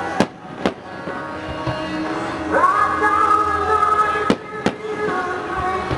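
Aerial firework shells bursting as two pairs of sharp bangs, one pair near the start and another about four and a half seconds in, over steady music.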